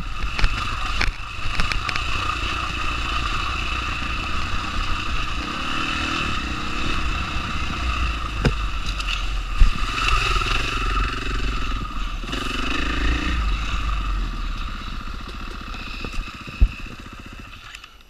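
KTM 500 dirt bike's single-cylinder four-stroke engine running under load on a rough trail, with knocks and clatter from the bike over the ruts. The engine sound drops away over the last couple of seconds as the bike slows to a stop.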